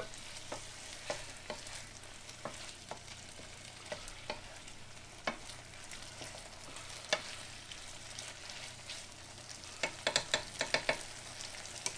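Diced chicken sizzling steadily in a frying pan while a wooden spatula stirs it, with scattered scrapes and knocks of the spatula against the pan and a quick run of them about ten seconds in.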